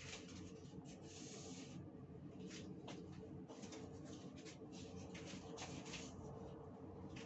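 Paper towel rustling and rubbing in irregular strokes while wiping along a sink edge being sealed with silicone, over a faint steady hum.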